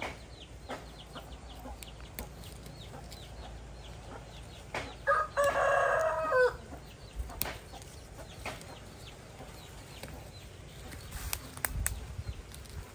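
A rooster crows once, about five seconds in: a single call of about a second and a half, with faint high chirping and a few light clicks around it.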